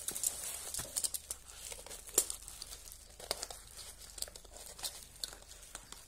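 Plastic packing wrap crinkling and a cardboard box rustling as a parcel is unpacked by hand, with scattered sharp crackles and a few louder snaps.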